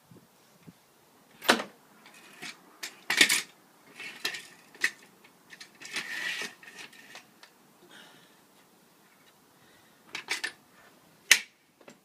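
Irregular sharp clicks and knocks, some in quick clusters, with louder ones a second and a half in, around three seconds in and near the end.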